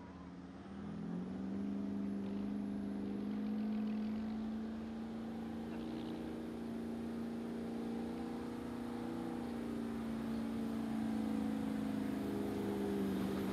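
Pulling truck's engine held at high revs under load on the pull: it climbs in pitch about a second in, holds a steady pitch for about twelve seconds, then drops away near the end.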